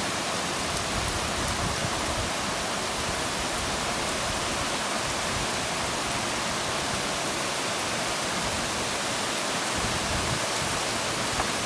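Heavy rain falling, a steady even hiss of drops on the ground and surfaces.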